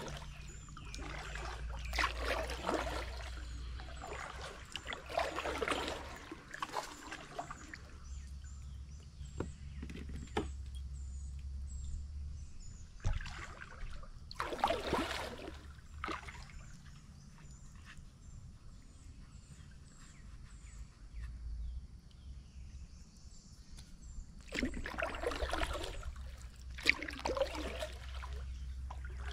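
Kayak paddle strokes: water splashing and dripping off the blades in a few short spells of strokes, with quieter gliding between them.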